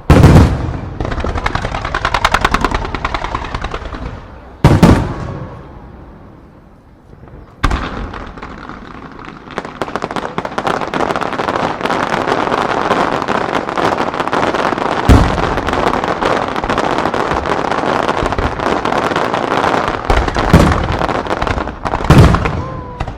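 Aerial fireworks display: several heavy shell bursts booming, with a short lull, then a long run of dense, rapid crackling and popping from shells fired in quick succession, broken by more booms near the end.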